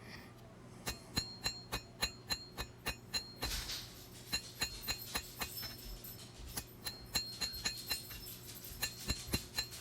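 Hand hammer striking hot blade steel on an anvil, a steady rhythm of ringing blows about three a second while drawing out the bevels near the tip of a double-edged knife. A short hiss comes about three and a half seconds in.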